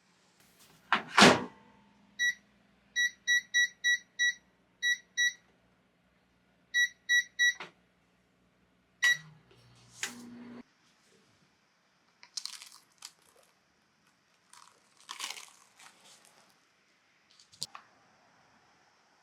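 Microwave oven door shut with a knock, then about a dozen short high keypad beeps in quick groups as the settings are entered, over a low hum. Faint rustling handling noises follow.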